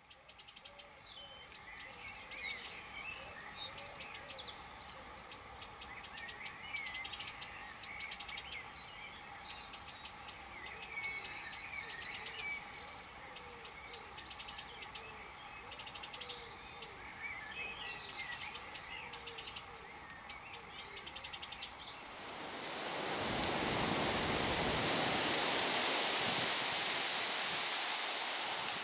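Songbirds singing, with many short chirps and trills overlapping. About 22 seconds in, a louder, even rushing noise rises and covers the birdsong.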